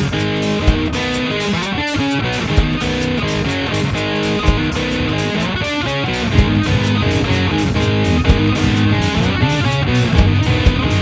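A live rock band plays an instrumental break with no vocals: electric guitar leads over bass and drums.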